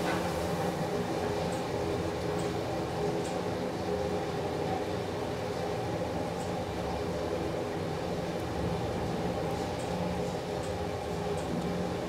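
Elevator car travelling down, a steady running hum from the hoist machinery with a few faint ticks scattered through it.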